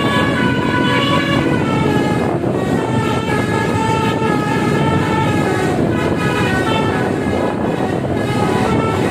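Bus telolet air horns (basuri) driven by a horn module, playing a melody as a run of held notes that step up and down in pitch, over a steady low rumble.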